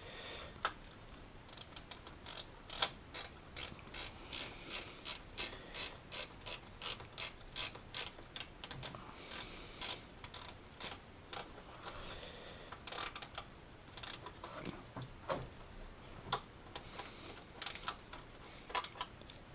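Socket ratchet clicking in even strokes, about two to three clicks a second with a few short pauses, as a 13 mm nut is run down onto the alternator's cable terminal stud.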